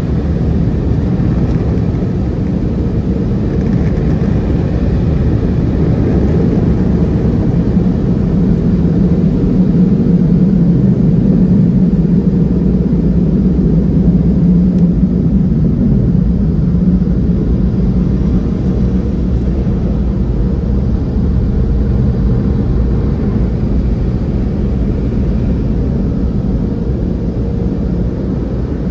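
Automatic car wash machinery heard from inside the car: a steady, loud noise that swells a little in the middle.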